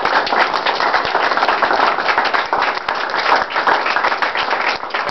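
A group of people applauding: dense, steady hand clapping.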